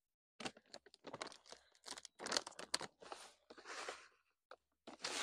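Hands rustling and crunching in grass and soil, along with the crinkle of a plastic packet being handled, in a run of short irregular bursts.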